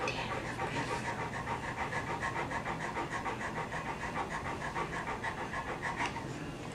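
Large black dog panting rapidly and evenly, mouth open and tongue out.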